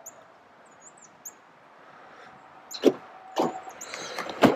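Pickup truck door being opened: a few short knocks, then a sharp click of the door handle and latch releasing near the end.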